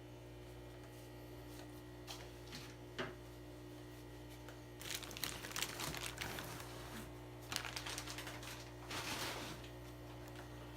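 Handling noise: a few light clicks, then bursts of plastic bag crinkling and rustling, as plecos are netted out of a shipping bag. A steady electrical hum runs underneath.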